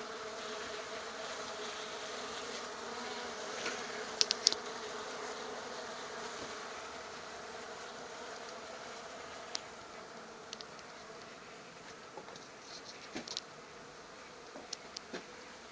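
Honey bees buzzing, a steady hum that slowly fades, with a few short sharp clicks along the way.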